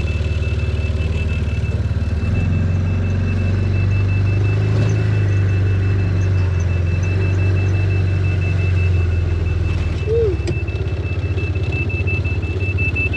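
Side-by-side UTV engine running, working harder from about two seconds in and easing off near the end, over a continuous rapid high-pitched beeping.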